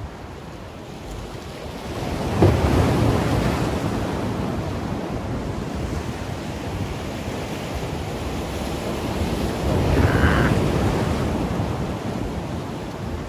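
Sea waves surging and breaking against the rocks and concrete blocks of a breakwater, with two louder surges, about two and a half seconds and ten seconds in.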